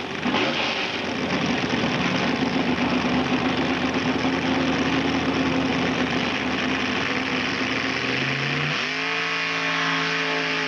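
A mud-bog vehicle's engine running hard with a coarse, noisy sound. About eight seconds in, a clear engine note climbs and then holds steady at high revs.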